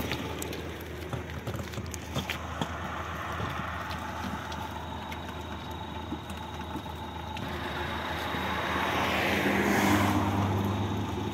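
A road vehicle passing on the highway, growing louder over a few seconds and loudest near the end before fading, over a steady low engine hum.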